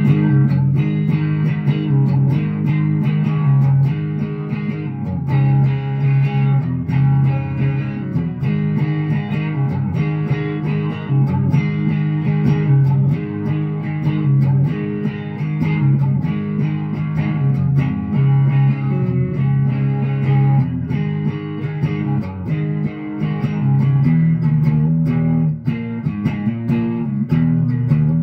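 Les Paul-style electric guitar played with a pick: a steady, unbroken run of strummed and picked chords.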